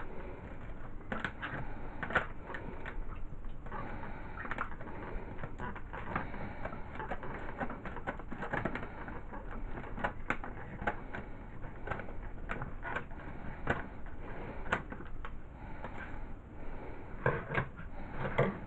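Scissors snipping through a paper cookie-mix pouch and the packet crinkling and rustling in the hands: a long run of irregular clicks and crackles.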